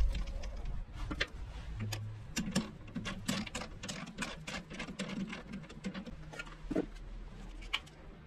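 A thump at the start, then irregular metallic clicks and light knocks as a small metal bar is fitted into a benchtop metal lathe's four-jaw chuck and the chuck guard is shut.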